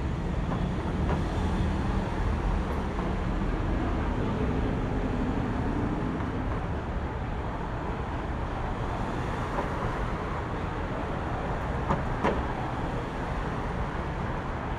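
City street traffic noise: a steady low rumble of passing vehicles, with an engine's hum rising and falling in the first half. A couple of sharp knocks come about twelve seconds in.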